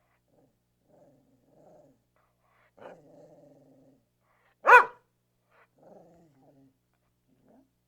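Medium-sized dog barking: one loud, sharp bark about two-thirds of the way in, with quieter, lower, drawn-out sounds from the dog before and after it.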